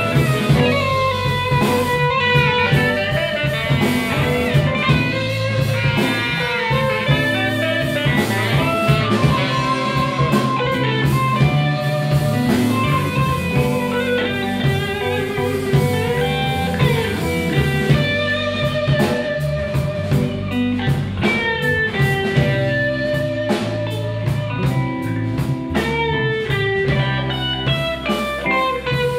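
Live blues band playing an instrumental stretch: an electric guitar takes the lead with bent, wavering notes over bass guitar and drums.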